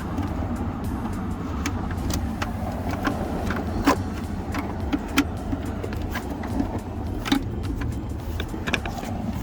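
Scattered light clicks and rattles of a car door's wiring harness and plastic clips being handled and pulled through the door, over a steady low rumble.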